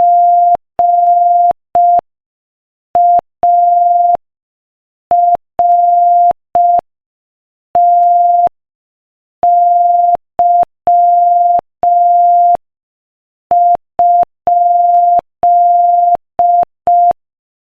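Morse code sent as a single steady pure beep tone, keyed on and off in short dots and long dashes at a slow 5 words per minute, with longer pauses between letters.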